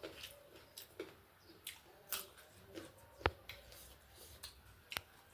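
Eating sounds: scattered soft clicks and crunches of food being chewed and handled, with one sharp click about three seconds in and another near the end.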